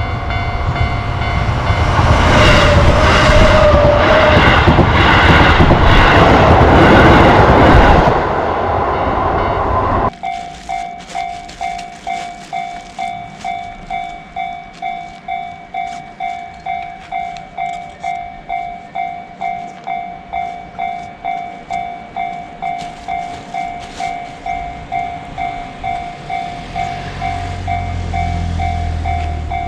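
A train passes loudly over a Japanese level crossing while the crossing's warning bells keep ringing; the train noise eases off about 8 seconds in. After an abrupt change, a level-crossing warning bell rings alone at a steady two strikes a second, and the low rumble of an approaching train rises near the end.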